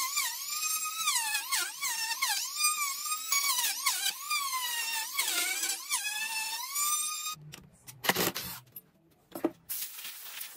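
Handheld trim router cutting circular grooves in a wooden board on a circle-cutting jig: a high motor whine whose pitch dips and recovers again and again as the bit bites into the wood. The whine stops about seven seconds in, followed by a couple of knocks and a short hiss.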